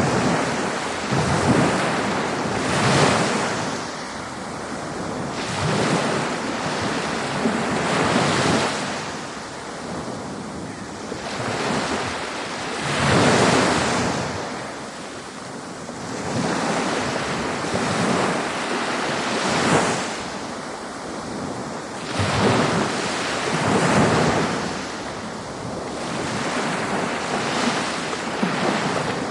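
Ocean waves breaking and washing in, a continuous surf noise swelling and easing every two to three seconds.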